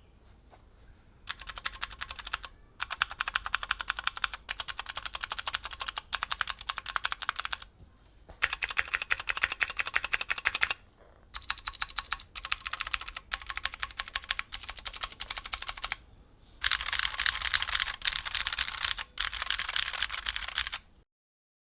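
Typing on a Keychron Q3 mechanical keyboard with factory-lubed, clicky Gateron G Pro Blue switches: rapid keystrokes in bursts of a few seconds with short pauses between them, stopping abruptly near the end.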